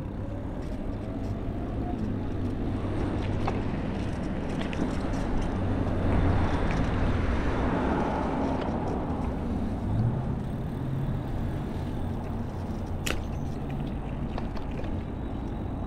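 Road traffic: a car passes, its tyre and engine noise swelling to its loudest about six to eight seconds in and then fading, over a steady low engine hum. A sharp click comes near the end.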